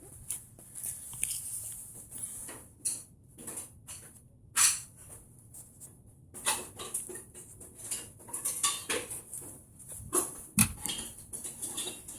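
Metal tools and parts clinking and clattering as they are handled, with irregular knocks, two of them louder.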